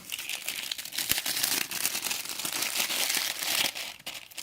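Plastic packaging crinkling and rustling as it is handled and pulled off the ceiling fan parts, an irregular run of crackles.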